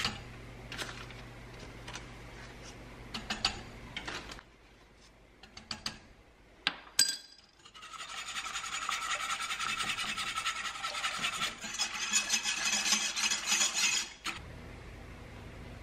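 Wire whisk beating cook-type Clear Jel thickener into pineapple juice and sugar in a saucepan: a fast, steady scraping rattle through the second half. Before it comes a quieter stretch with a few light clinks as the powder is spooned in.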